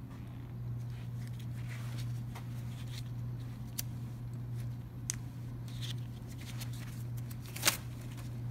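Steady low hum with scattered light clicks and taps, and one sharp click near the end.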